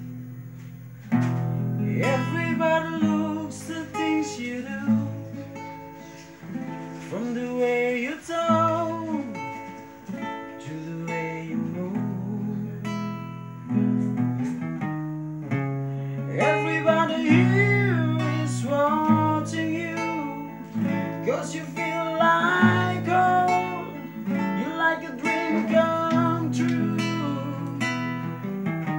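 A singer performing a song to acoustic guitar strumming, the voice carrying the melody over steady chords.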